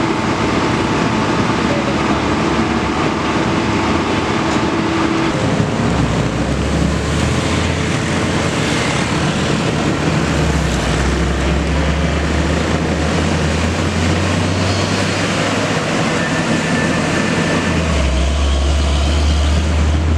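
Komatsu PC200 excavator's diesel engine running under changing load. A steady higher tone drops out about five seconds in, and from about six seconds a strong low drone comes in that steps up and down several times.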